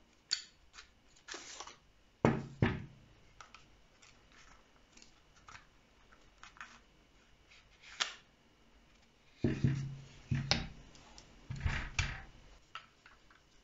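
Clicks, knocks and short scrapes of a KJW MK1 airsoft pistol and its hard plastic 3D-printed stock being handled and worked apart. The loudest knocks come in a pair about two seconds in and in clusters from about nine and a half to twelve seconds.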